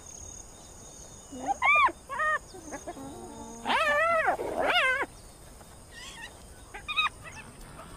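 Spotted hyena cubs squealing and whining as they play-fight: short calls that rise and fall in pitch, several in quick succession about four to five seconds in, and another near the end.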